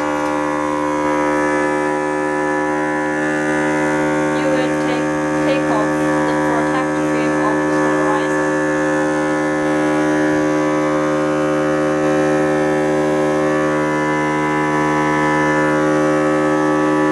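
Vacuum pump of an OCA polarizer film laminating machine running with a steady, unchanging hum while it holds the polarizer film down on the LCD.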